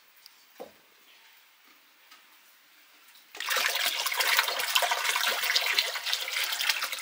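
Water pouring or running, starting suddenly about halfway through as a loud, steady rush.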